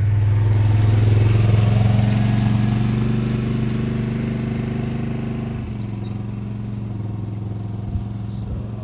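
A 4x4 truck's engine running as it drives past, loudest in the first couple of seconds and then slowly fading away.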